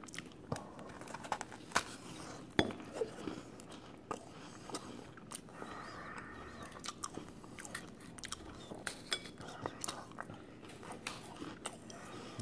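Close-up mouth sounds of a crisp meringue being bitten and chewed: scattered small crunches and crackles, faint and irregular.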